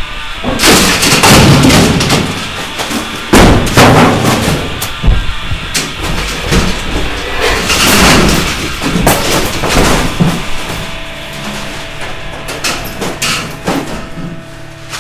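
A run of heavy crashes and thuds as boards and ceiling tiles are smashed down and fall, with music underneath. The impacts are densest and loudest in the first ten seconds and thin out later.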